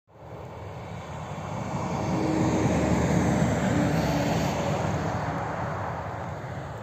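A vehicle passing by, its noise swelling to its loudest about three seconds in and then slowly fading away.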